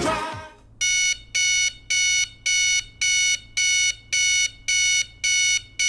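Electronic alarm clock beeping in a steady repeating pattern, just under two short beeps a second. Music fades out in the first half second, before the beeps begin.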